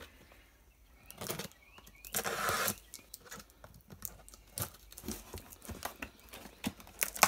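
A knife blade cutting through the tape and cardboard of a small mailing box, in short scraping, tearing bursts. The longest burst comes a little over two seconds in, and there is a sharp click near the end.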